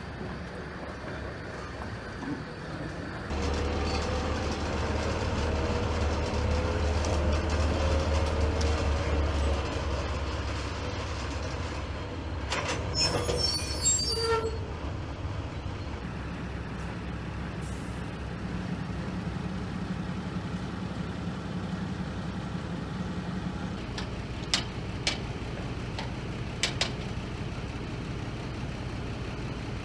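Diesel locomotive engine running, its low drone growing louder about three seconds in and holding for several seconds. A burst of sharp metallic clanks comes near the middle, and a few sharp clicks near the end.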